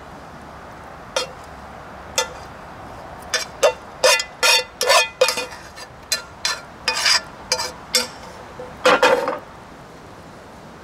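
A metal utensil scraping and knocking against the inside of a metal cooking pot as fried mushrooms are scraped out: a run of sharp clinks with a short ring, sparse at first, then in quick clusters through the middle, ending in a longer scrape.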